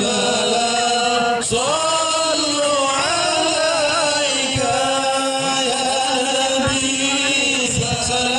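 Sholawat, Islamic devotional chanting, sung by male voices in long held lines that slide between notes.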